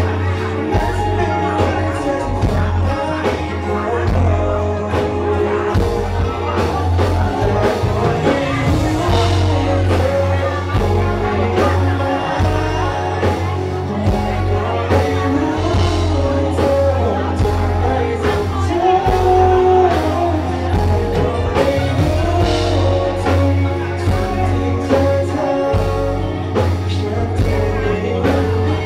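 Live band music with a singer: a loud, steady bass and regular drum hits under a sung melody.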